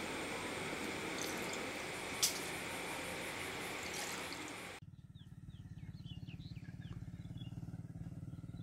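A steady rushing noise with one short click, which cuts off abruptly about five seconds in. An engine then runs steadily with a fast, even low pulse, and birds chirp over it.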